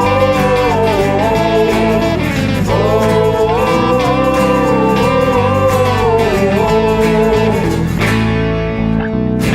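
A band playing an instrumental break of a folk-rock song: a lead line of long, bending notes over guitar and a steady beat. About eight seconds in, the lead line stops and the guitar carries on.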